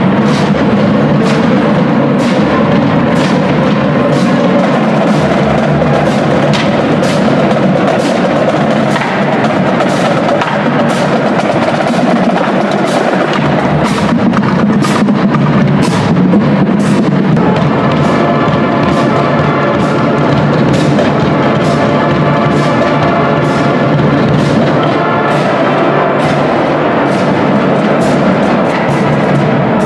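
Marching band playing as it marches: a drumline with bass drums keeps a steady beat with sharp stick clicks, and a little past halfway the winds come in with held chords.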